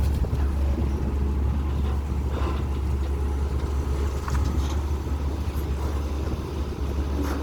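Long-reach CAT320 excavator's diesel engine running at a steady, even drone, with a few faint knocks.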